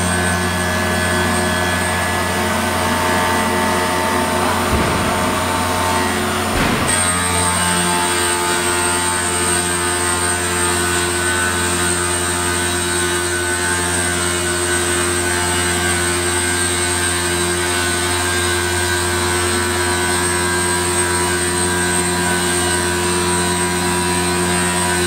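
Stone CNC machining center's spindle running a grinding tool along the edge of a stone countertop slab, with water coolant: a loud, steady mechanical drone, joined about seven seconds in by a thin high whine.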